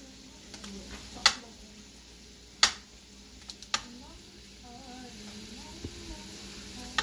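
A chef's knife slicing through a block of fresh mozzarella, its blade striking a glass cutting board in a few sharp clicks about a second apart.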